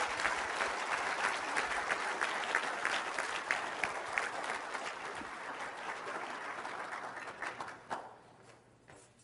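An audience applauding: dense clapping that thins out and fades away over the last couple of seconds.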